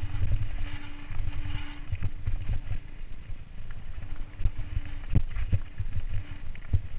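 Mountain bike rattling and knocking over a rough, rocky dirt trail on a fast descent, with a constant low rumble and a faint steady hum that comes and goes.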